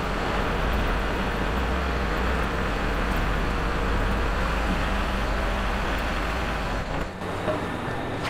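Kubota L4701 tractor's four-cylinder diesel engine running as the tractor drives a short way forward and back on newly fitted, still-loose tire chains. The engine note changes about seven seconds in.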